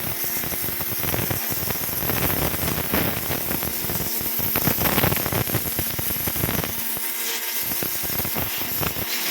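Electric pressure washer spraying a high-pressure jet of water, a steady hiss as it washes away pig manure, with the machine's motor humming faintly underneath. The deep rumble in the spray thins out about seven seconds in.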